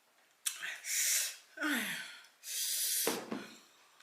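A woman breathing hard, three loud hissing breaths about a second apart, a reaction to the burn of scorpion-pepper hot sauce.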